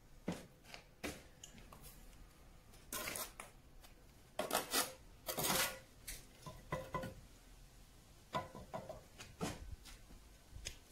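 A concrete padstone being pushed and worked into a bed of sand-and-cement mortar: irregular scrapes and knocks, with a few sharp clinks, the loudest scrapes a few seconds in.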